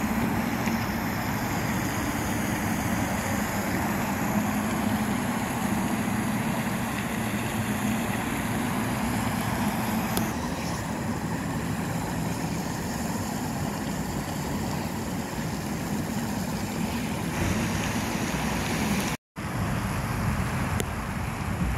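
Steady outdoor noise of road traffic with wind buffeting the microphone, broken by a brief dropout about 19 seconds in.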